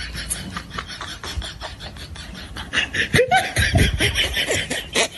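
A person laughing in fast, breathy bursts that grow louder about halfway through.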